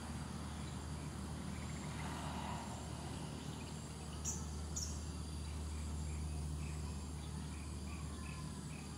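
Outdoor ambience: a steady low hum under a thin, steady high insect drone. Two short high chirps come about four seconds in, then a row of soft chirps at about two a second through the second half.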